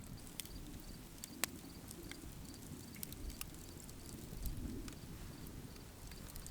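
Faint outdoor ambience with insects chirping in short, high, repeated bursts, and a few light clicks scattered through it.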